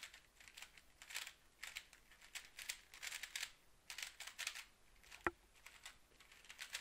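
GAN 356 X stickerless 3x3 speedcube being turned quickly by hand: rapid, irregular plastic clacking and swishing of the layers, several turns a second, with one sharper click about five seconds in.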